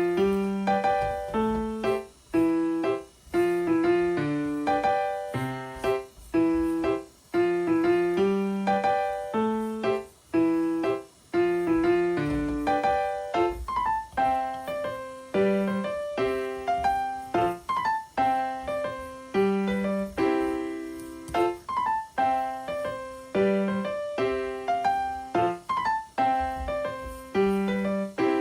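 Background piano music: a steady run of single struck notes over a simple bass line.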